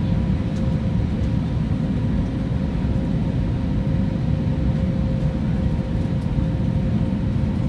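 Cabin noise inside an Airbus A321neo in flight: a steady low rumble of airflow and engines with a faint constant hum.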